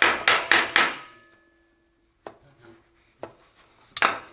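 A quick run of about five hammer blows on metal, each ringing briefly, then a pause broken by a few light knocks and another blow near the end: hammering to break loose an oil pan glued on with RTV sealant.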